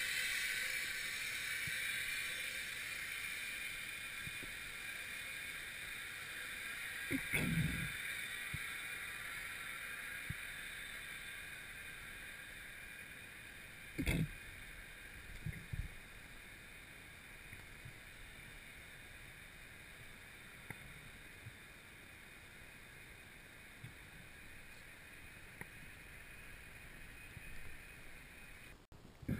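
Underwater ambience picked up through a diving camera's housing: a steady hiss that slowly fades, with a dull thump about seven seconds in and a sharp knock about halfway through, followed by a couple of smaller knocks.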